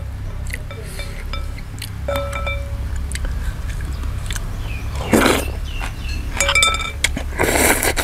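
A metal spoon clinking against a noodle bowl, with ringing clinks about two seconds in and again around six and a half seconds, and two short slurps of noodle soup, over a steady low hum.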